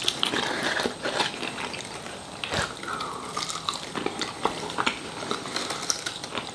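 Close-up eating sounds from a bone-in chicken wing: biting, pulling the meat off the bone with the teeth, and wet chewing and lip-smacking, heard as a string of small clicks and smacks.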